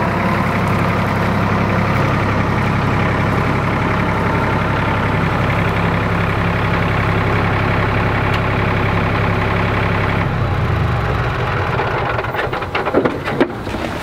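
RK 37 compact tractor's diesel engine running steadily as it pulls a dump trailer. Its note drops lower about ten seconds in, and a few short knocks follow near the end.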